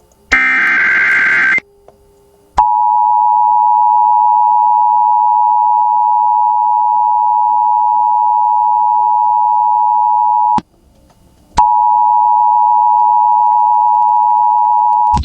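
Emergency Alert System signals: a short burst of rapid electronic warbling, the alert's digital header data, then the EAS attention signal. The attention signal is a steady, loud two-tone beep (853 and 960 Hz together) held for about eight seconds, broken by a one-second gap, then sounding again for a few more seconds.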